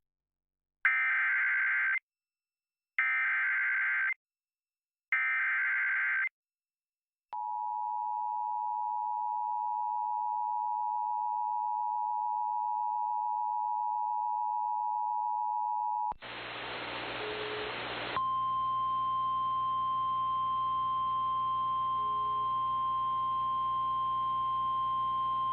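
Emergency Alert System tones: three bursts of SAME header data about a second each, then the two-tone EAS attention signal held for about nine seconds. Then a short burst of radio static and a steady single-pitch alarm tone over hiss, like the NOAA Weather Radio 1050 Hz warning alarm.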